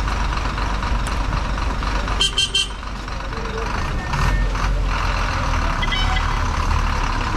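A private bus's diesel engine running with a steady low rumble, growing louder about four seconds in. About two seconds in, three quick, short high beeps sound over it.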